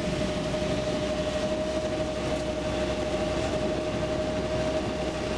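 Tour boat's motor running steadily, a constant drone with a held whining tone over a low rumble.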